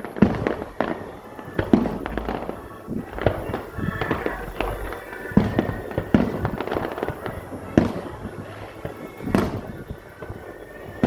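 Fireworks display: aerial shells bursting in a quick series of loud booms, about a dozen in all, with crackling between some of them.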